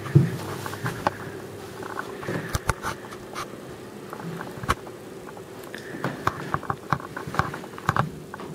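Scattered light clicks and knocks from handling the camera and from footsteps as someone walks through carpeted rooms, more frequent in the second half, over a steady faint hum.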